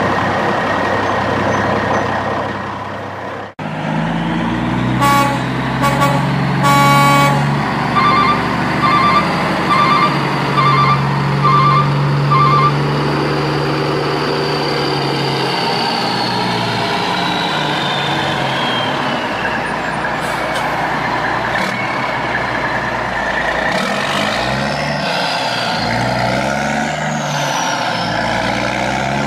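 Heavy truck sounds: an engine running under two long horn blasts, then a string of about nine short horn toots. After that the engine runs on with a whine that falls slowly in pitch, and near the end the pitch rises and falls as if it is revving.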